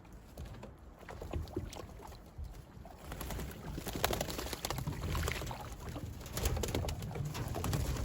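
Racing pigeons cooing over irregular water splashing from the birds bathing; the splashing gets busier and louder about three seconds in.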